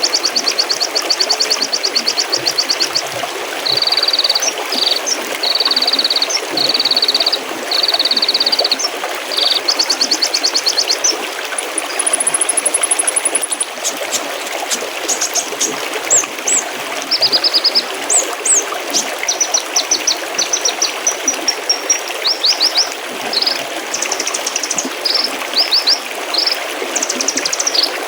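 Small stream trickling and splashing steadily, with songbirds singing over it. The song opens with rapid trills, then a string of short repeated notes, and later many quick whistles and down-slurred notes.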